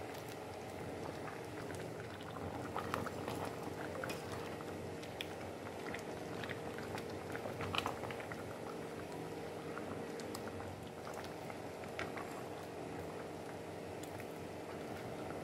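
Pot of pepper soup bubbling on the boil, with a spatula stirring through the meat and a few light knocks against the stainless steel pot.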